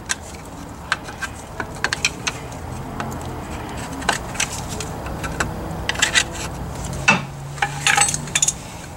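Irregular light metallic clicks and clinks of hand tools working against the steel spindle and lower ball joint of a car's front suspension, several in quick succession near the middle and the end, over a steady low hum.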